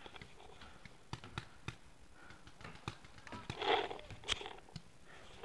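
Rustling and handling noise from the player's gear and movement, with scattered sharp clicks; the loudest rustle comes about three and a half seconds in, as the player shifts down towards the ground.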